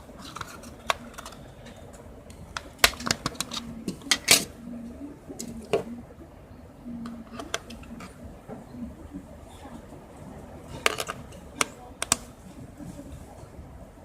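Scattered plastic clicks and taps from handling a Moto C smartphone and its battery, irregular, with the loudest about four and eleven seconds in.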